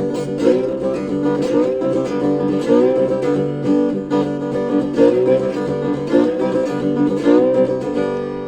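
Music on plucked string instruments, led by strummed guitar chords re-struck every second or so, with the final chord left ringing and fading near the end.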